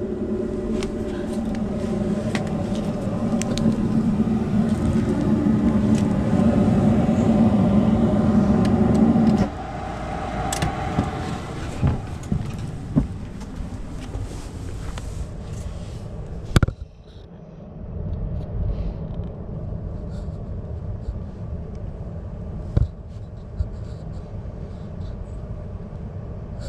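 A steady machine hum with a low drone, cutting off abruptly about nine seconds in. After that a quieter low rumble with a few sharp clicks and knocks.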